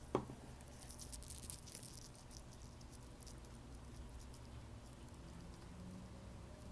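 Faint small ticks and taps as a super glue bottle is handled and held against live rock, with one sharp click just after the start, over a low steady hum.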